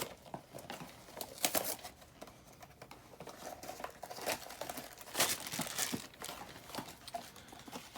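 Funko Mystery Minis blind-box packaging being opened by hand: irregular crinkling and tearing, with louder crackles about one and a half seconds in and again a little past five seconds.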